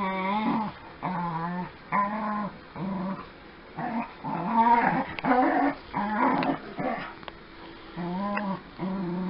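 Dogs play-growling while wrestling: a string of short growls with brief gaps, about one or two a second.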